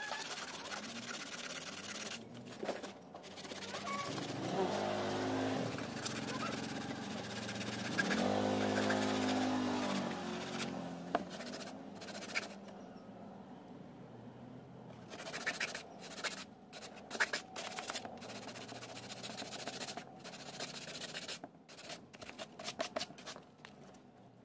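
Sandpaper rasping along the trimmed edge of a fiberglass fairing, in scratchy strokes that break into short sharp scrapes and clicks in the second half. A motor vehicle's engine hum swells twice in the first half and is the loudest sound.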